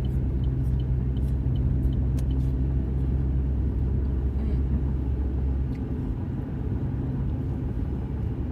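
Car engine and road rumble heard from inside the cabin while driving, a steady low drone that eases off about two-thirds of the way through. Faint light ticks come in the first couple of seconds.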